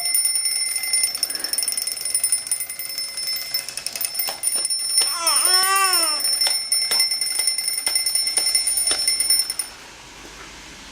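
Alarm clock ringing, a rapid high-pitched ring that stops suddenly near the end. A high voice cries out briefly in the middle.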